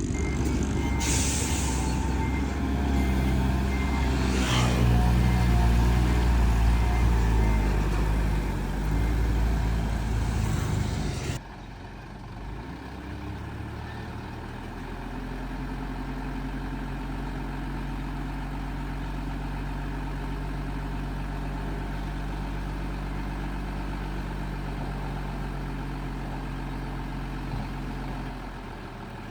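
Diesel dump truck engine running hard with a reversing beeper sounding in short repeated beeps and a brief hiss of air. About a third of the way in the sound cuts off suddenly and gives way to a quieter diesel engine idling steadily.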